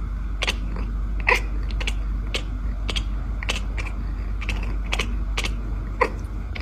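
Sharp clicks repeating at a fairly even pace of about two a second, over a steady low hum.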